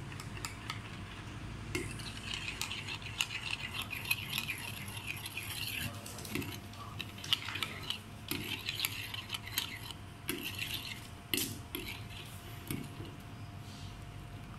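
Metal spoon stirring a thick, wet yellow mixture in a clay bowl. It scrapes and clinks irregularly against the bowl's sides.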